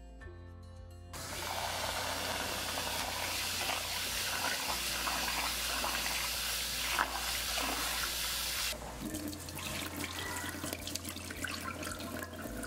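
A kitchen faucet turns on about a second in and runs water over jasmine rice being washed. The water eases off about nine seconds in, leaving lighter splashing and small clicks as the rice is drained.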